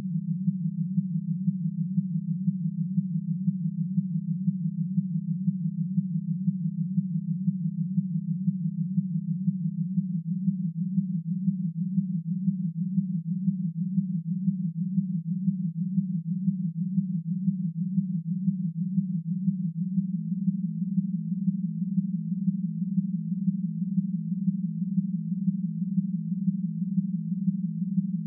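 A chord of ten steady sine tones at consecutive prime-number frequencies, all between about 110 and 250 Hz, beating against one another in a fast, uneven throb. About ten seconds in, and again about twenty seconds in, the lowest tone drops out and the next prime above the top is added, lifting the chord slightly.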